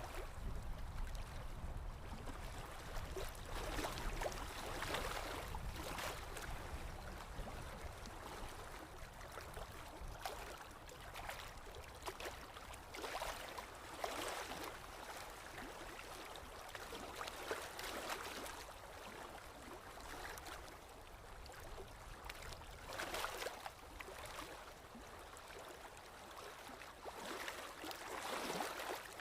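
Water flowing and splashing, with irregular surges of swishing every second or two.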